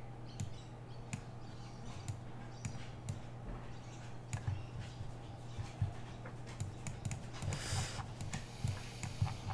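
Computer mouse clicking and scroll-wheel ticking, sparse and irregular, as the on-screen map is dragged and zoomed, over a faint steady electrical hum; a short hiss comes near the end.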